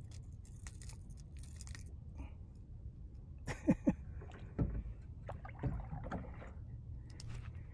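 Handling noises aboard a kayak: small knocks and rattles of gear against the hull over a low steady rumble of wind and water, with two short squeaks about three and a half seconds in and a couple of dull thumps shortly after.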